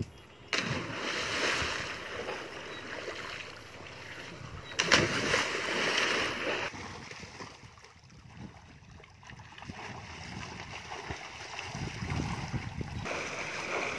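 Two splashes as people jump from a diving tower into a small pool, one about half a second in and a louder one at about five seconds, followed by churning, sloshing water as they swim.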